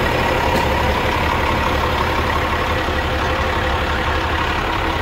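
Cummins ISM inline-six diesel engine of a 2005 International 5600i heavy truck idling steadily, sounding healthy.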